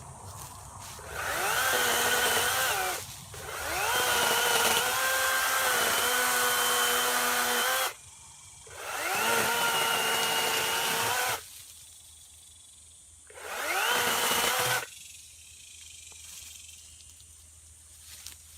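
Greenworks 40-volt cordless electric chainsaw cutting wood in four bursts. Each time its motor whine rises as it spins up, holds steady through the cut, then stops. The second burst, about four seconds long, is the longest.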